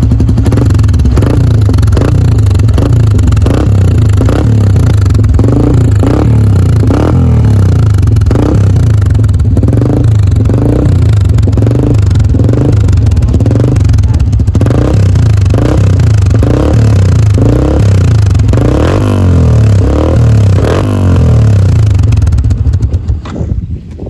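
Yamaha Sniper 150's single-cylinder four-stroke engine running loud through an aftermarket SMOK power pipe exhaust, revved in quick repeated throttle blips a little over once a second. The revving falls away near the end.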